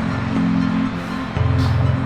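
Background music: slow, low sustained synthesizer tones that alternate pitch about once a second, with soft swelling swishes above them.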